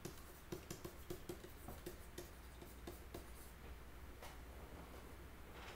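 Stylus tapping and scratching lightly on a tablet screen as a word is handwritten: quick faint taps several times a second for about three seconds, then a single click about four seconds in, over a steady low hum.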